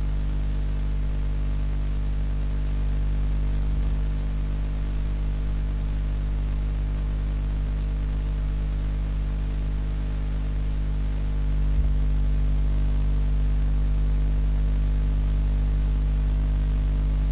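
Steady electrical mains hum with hiss from the recording, unchanging apart from a faint bump about twelve seconds in, after which it is slightly louder.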